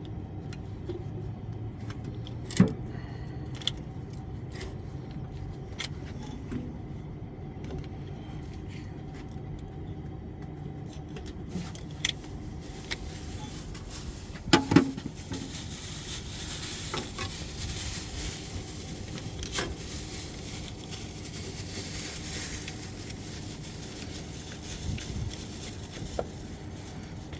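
Scattered metallic clinks and knocks of tools and parts being handled, with two sharp clanks about 2.5 and 14.5 seconds in, over a steady low hum. A hiss joins about halfway through.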